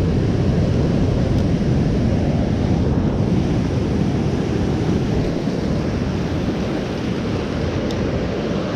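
Ocean surf washing in with wind buffeting the microphone: a steady rushing noise heaviest in the low end, easing slightly in the second half.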